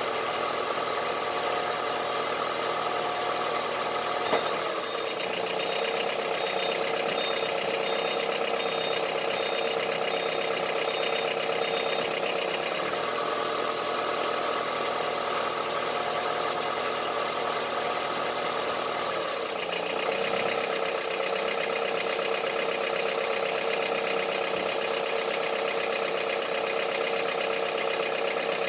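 Third-generation Honda CR-V's 2.4-litre four-cylinder petrol engine idling with a diesel-like knock, the engine fault in question. The engine note shifts in tone a few times.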